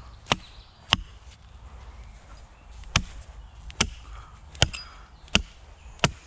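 Seven sharp chops of a Prandi hatchet biting into the end of a wooden stake, sharpening it to a point, irregularly spaced at about one a second with a two-second pause near the start.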